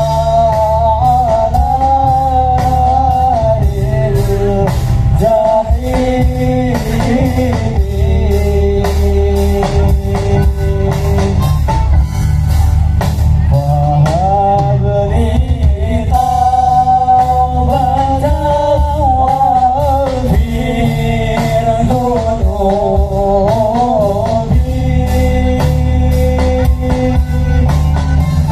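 Live band playing through a large outdoor PA system: a wavering sung melody over a steady drum beat and heavy bass.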